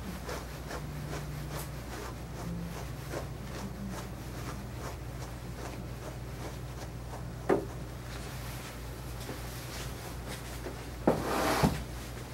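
Grooming brush raking through a long-haired dog's coat in quick repeated scratchy strokes. There is a brief sharp knock partway through and a louder rustling burst near the end.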